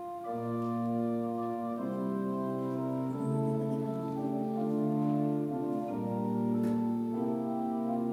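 Church organ playing the introduction to a congregational hymn: slow, held chords that change every second or two.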